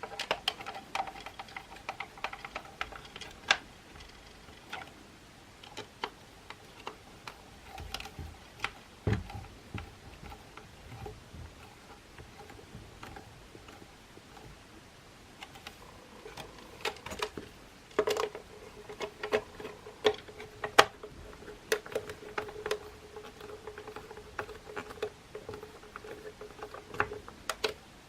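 Irregular clicks, taps and knocks of small plastic and metal parts of a Makita CL107FD cordless vacuum being handled during repair, with a faint steady hum underneath. The taps come thicker and louder for a few seconds past the middle.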